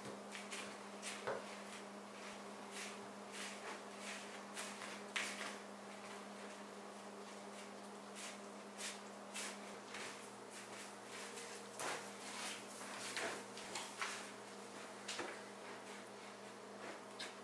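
Wooden spoon stirring a thick, shaggy bread dough in a plastic bucket: irregular soft knocks and scrapes against the bucket, over a steady low hum.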